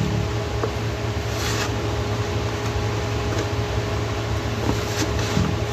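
Steady drone of a running vehicle: a low hum with a faint steady whine above it and a few light clicks.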